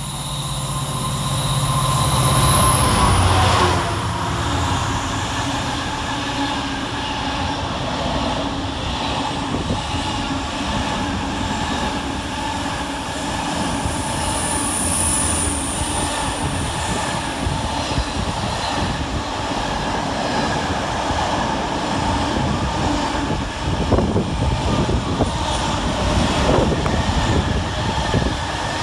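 Class 66 diesel-electric freight locomotive, with its two-stroke V12 diesel, passing close by at speed; its engine note drops in pitch as it goes past about three seconds in. A long string of container flat wagons follows, rumbling and clattering over the rail joints, the clatter growing busier near the end.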